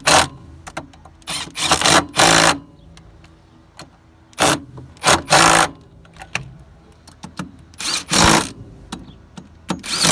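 Impact gun running in about six short, loud bursts, driving down the small bolts on the retaining clip of a Krone SafeCut cutter hub.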